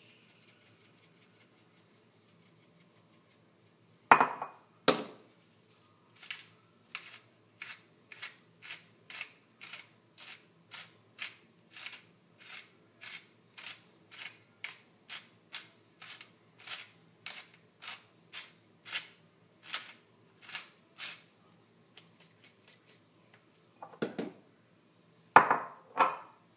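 Hand-twisted pepper mill grinding in a steady run of about twenty short crunching strokes, a little more than one a second. Loud knocks come before and after the run as the mills are picked up and set down on the counter.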